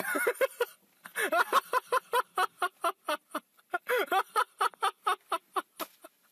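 A person laughing in a high voice: a long run of short, quick bursts, about four or five a second, with a brief pause about a second in.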